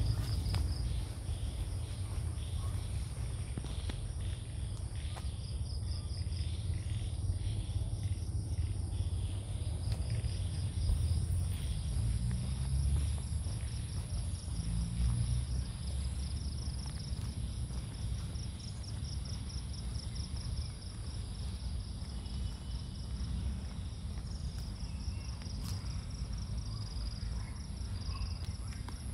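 Insects calling from the trees: a steady high-pitched drone and a rapid pulsing trill that comes and goes, over a steady low rumble.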